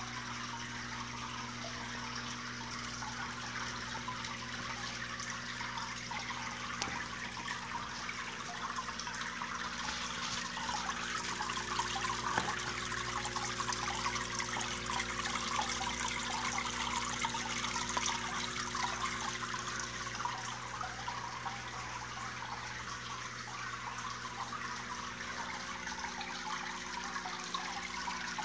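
Water running down the mirror face of a marble and slate wall fountain and trickling into its pebble-filled trough, a steady trickle with a steady low hum underneath.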